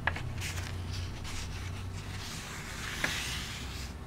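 Paper pages of a hand-bound sketch journal being turned and handled, a soft rustle with a light click at the start and another about three seconds in.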